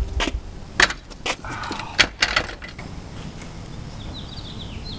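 Metal clanks and rattles of a Corbeau racing seat's steel slider brackets as the seat is worked loose and lifted out of the car. There are several sharp knocks in the first half over a low rumble, and a run of short high chirps near the end.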